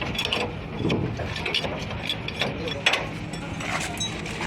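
Irregular metallic clicks and knocks of hand tools working on a truck's leaf spring assembly, with one louder knock near the end.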